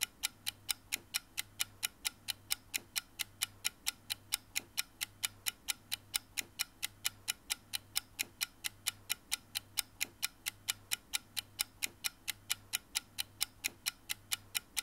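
Steady, even clock-like ticking, about four ticks a second, over a faint low hum.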